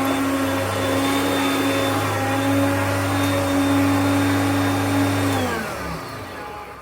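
Hoover Concept upright vacuum cleaner running steadily, then switched off about five seconds in, its motor winding down to a stop.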